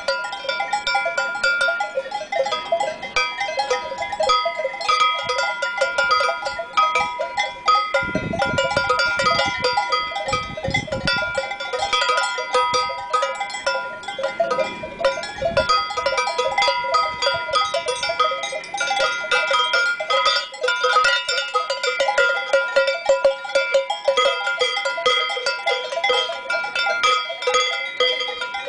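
Several cowbells on cattle ringing together in an irregular, overlapping clang as the cows move their heads and graze, each bell holding its own pitch.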